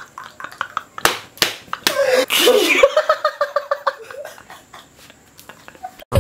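A man laughing hard in rapid, repeated 'ha-ha' pulses, with two sharp smacks about a second in and a louder burst of laughter around two seconds in. The laughter then trails off and goes quiet near the end.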